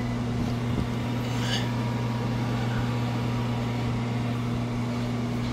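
Fireplace blower fan kit, twin blowers on a center-mounted ball-bearing motor, running at full speed: a steady low motor hum with a rush of moving air.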